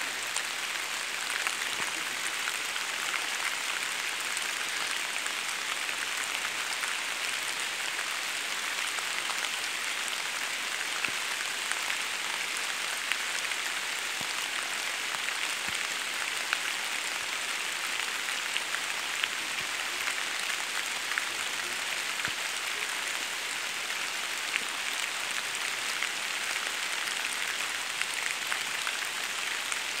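Steady rain falling on the leaves of an oak forest, a constant hiss with scattered louder drops ticking.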